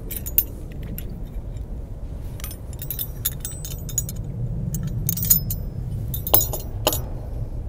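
Small metal automatic gate latch and its hardware clinking and clicking as it is handled and fitted by hand: a scattered string of sharp metallic clicks and clinks, a few ringing briefly, over a steady low rumble.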